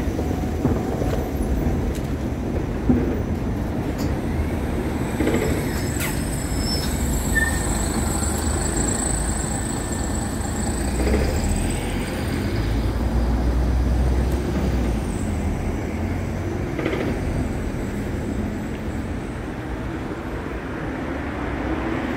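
Street traffic noise, a steady low hum of passing vehicles, with a thin high squeal for a few seconds about a third of the way in.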